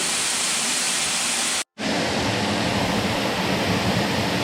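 Waterfall: a steady, loud rush of falling water, cut off for a split second a little under two seconds in and then resuming with a somewhat deeper sound.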